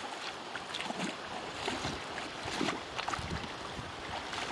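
Feet wading through shallow seawater, with irregular splashes and sloshes.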